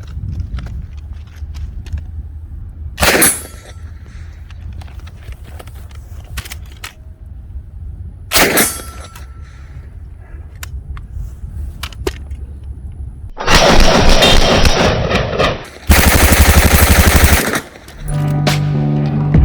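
Steyr MPi 81 9 mm submachine gun firing: two single shots several seconds apart, then two long bursts of full-auto fire near the end.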